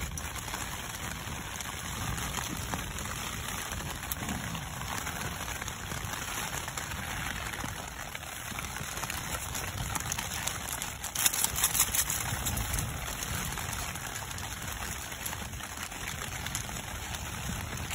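Rain falling on the fabric of a Hilleberg Soulo tent, heard from inside the tent, with a short run of sharp clicks about two-thirds of the way through.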